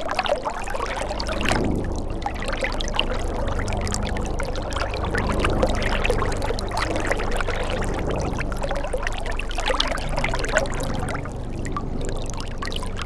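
Shallow river water flowing and burbling over stones, a steady rush with many small splashes and a low rumble underneath.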